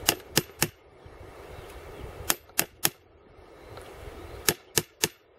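A small hammer tapping a nail or screwdriver into a birch trunk to open a hole for tapping birch sap: three sets of three sharp taps, about two seconds between sets.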